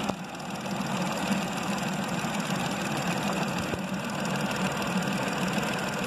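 VW Polo petrol-car engine idling steadily, heard close up in the open engine bay.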